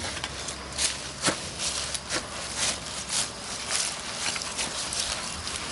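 Boots tramping down damp clay-coated straw in a wall form, with a string of crisp rustling crunches from the straw underfoot, about two a second, as the straw light clay is packed tight.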